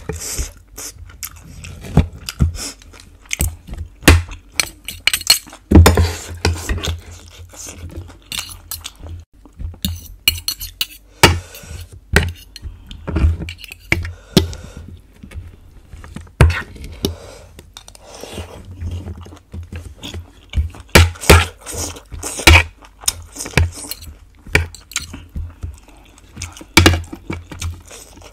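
Metal fork and spoon clinking and scraping on a ceramic plate while pulling apart grilled pork ribs, in irregular sharp clicks, with close-up chewing between them.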